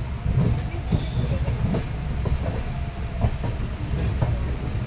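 Passenger train coaches running at low speed, heard from on board: a steady low rumble of wheels on rail with scattered clacks as the wheels cross rail joints and points, and a brief high-pitched squeal or click about four seconds in.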